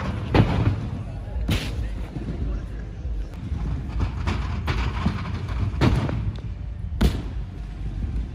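Irregular, echoing thuds of gymnasts landing and bouncing on trampolines and a tumbling track in a large arena hall, about six in all, over a steady low hum and faint voices.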